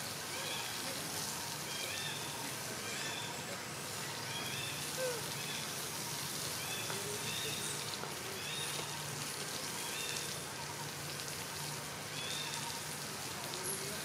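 Steady outdoor hiss, with short high chirps recurring in small groups about once a second.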